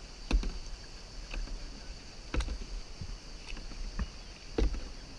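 Kayak paddle strokes, the blades of a double-bladed paddle dipping into the river in an even rhythm, with the strongest strokes about two seconds apart and fainter ones between. The sound is muffled by the GoPro's waterproof case.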